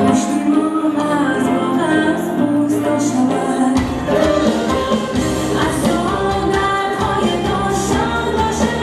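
A woman sings a Tajik pop song over instrumental backing. A deeper bass line comes in about four seconds in.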